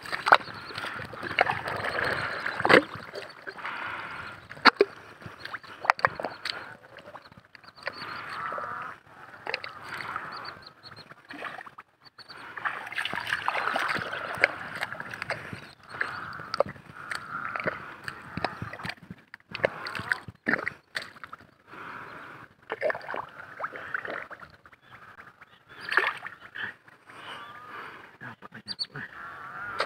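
Boots splashing and squelching through shallow water and mud in irregular steps, with hands digging and sloshing in wet mud near the end.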